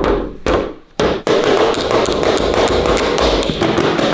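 A children's toy drum being beaten: a few separate hits, then from about a second in a fast, dense run of strikes.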